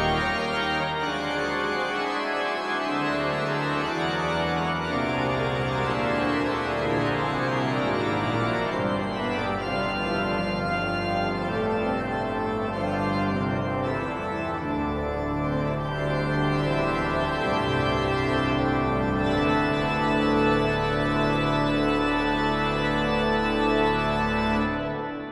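Marcussen pipe organ (three manuals and pedal, 56 stops) playing a toccata: dense sustained chords with busy upper notes over held pedal bass notes. Just before the end the chord is released and the sound dies away in the church's reverberation.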